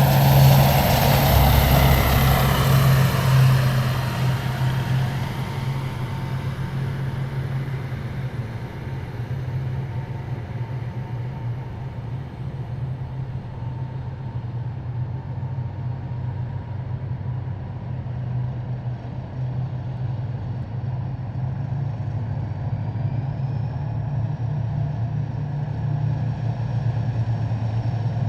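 Heavy military vehicles' engines running as a column moves past: one passes close and loud in the first few seconds, then a steady low engine drone that grows slightly louder near the end.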